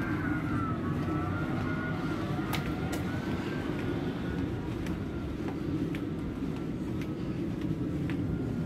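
Steady low rumble and hum of a cruise ship's interior corridor, the ship's ventilation and machinery noise, with a faint wavering higher whine and a few light ticks.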